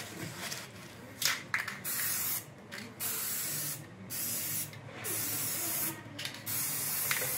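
Aerosol spray paint can spraying a coat of paint in about five short bursts, each a hiss lasting half a second to a second, separated by brief pauses.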